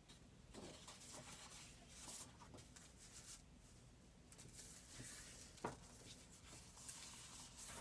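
Near silence, with faint rustling and sliding of paper sheets handled on a tabletop, and a few soft touches.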